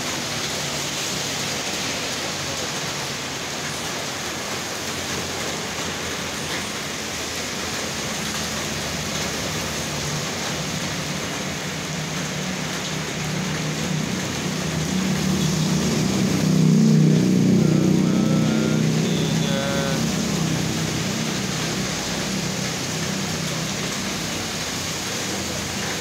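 Heavy rain pouring steadily onto a flooded street. A vehicle passes through the water, swelling to loudest about two-thirds of the way through and then fading.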